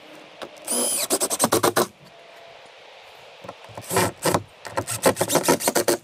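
Cordless Makita drill/driver driving screws into OSB roof sheathing, in two bursts. Each burst is a short motor whine followed by rapid clicking.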